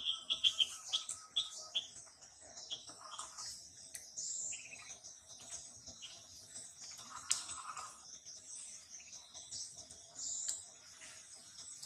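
Birds chirping and calling over a steady high-pitched insect buzz, with a quick run of short falling chirps in the first two seconds and a sharp click about seven seconds in.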